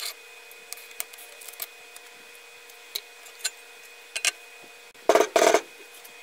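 Hands handling a thin aluminium sheet and double-sided tape on a chipboard CNC bed: scattered light clicks and taps, then a loud double scraping rush about five seconds in. A steady faint hum runs underneath.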